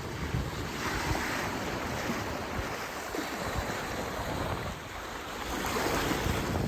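Sea water rushing and washing around a sailboat running downwind in lumpy seas, swelling and easing, with some wind on the microphone.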